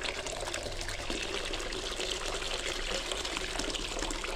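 Water pouring in a steady stream from the mouth of a glass canning jar packed with vegetables into an enamel basin already holding water, splashing and bubbling as it lands. The jar is being drained of the hot water poured over the vegetables, a step in home canning.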